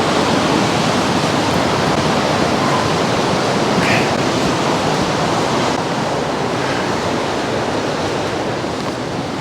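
Steady, loud rush of a mountain river running high, raging whitewater with no breaks.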